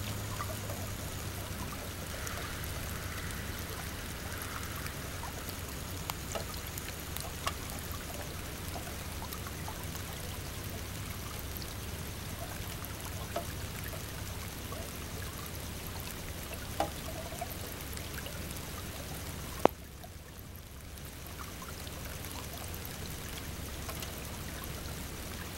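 Steady flowing-water noise, like a small stream or trickle, with a few faint clicks scattered through it and one sharper click about 20 seconds in.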